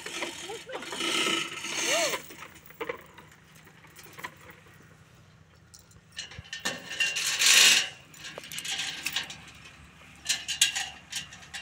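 Irregular metal clanks, knocks and rattles of speaker rigging being put up, with a louder scraping noise about seven to eight seconds in.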